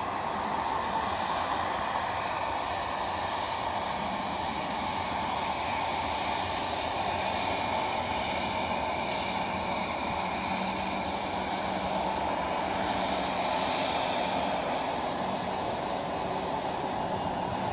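Loganair Embraer ERJ145 regional jet's two Rolls-Royce AE 3007 turbofans running steadily at low power, a jet rush with a thin whine over it.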